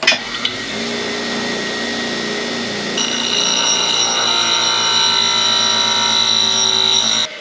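Bench grinder running, with a steel bolt head pressed against the wheel. The grinding gets louder and higher-pitched from about three seconds in, then cuts off suddenly near the end.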